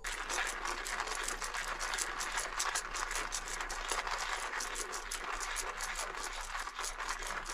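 Coffee grinder grinding whole coffee beans: a dense, rapid crunching rattle of beans being cracked. It starts suddenly and goes on steadily.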